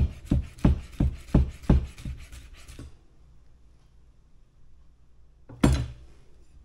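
Chef's knife chopping green onion on a plastic cutting board: a steady run of knocks, about three a second, that stops about three seconds in. Near the end comes a single sharp knock.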